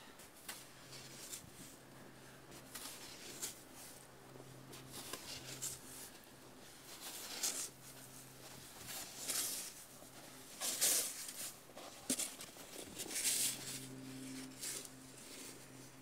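A snow shovel scraping and scooping through deep snow in irregular strokes, with footsteps crunching in the snow; the loudest scrapes come a little past the middle. A faint steady low hum runs underneath.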